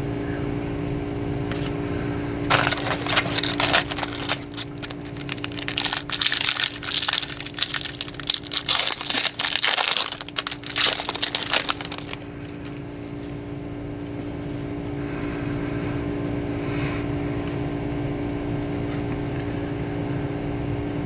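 Crinkling and tearing of a foil trading-card pack wrapper as it is ripped open and handled, in irregular bursts for about ten seconds from a few seconds in, over a steady low hum.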